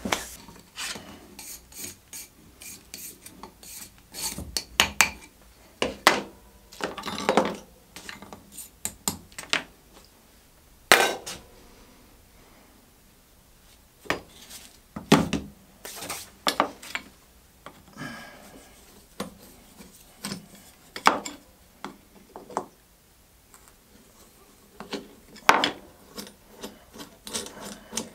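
An old wooden fillister plane being taken apart by hand: irregular knocks and clicks of wooden and metal parts being handled and set down on the table, with rubbing and scraping between them and a couple of quieter pauses.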